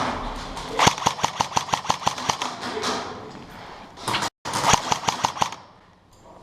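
Airsoft guns firing rapid bursts of sharp clacking shots, several a second, in two strings with a brief break a little after four seconds.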